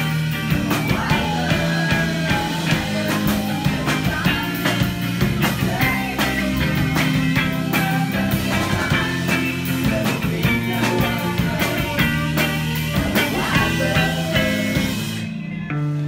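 Live rock band playing: drums, electric guitar and bass, with a woman singing into a microphone. About fifteen seconds in the drums and cymbals stop and only plucked guitar and bass notes carry on.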